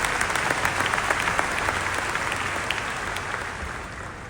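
Audience applause in a large hall, dense clapping that fades away toward the end.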